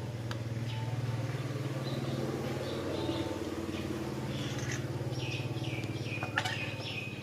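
A steady low hum with birds chirping over it, a quick run of short falling chirps in the second half.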